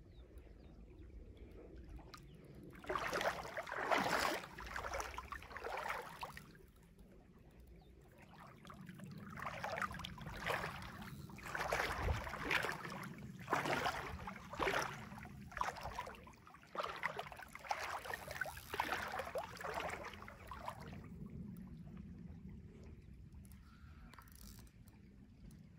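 Water splashing and sloshing in irregular bursts, a few seconds in and again through the middle stretch.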